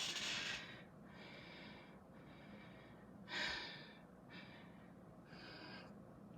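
A person breathing audibly close to the microphone, a soft airy breath about once a second, the strongest at the start and another a little past the middle.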